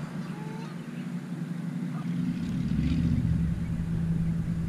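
An engine running steadily, a low even hum that grows louder about two seconds in.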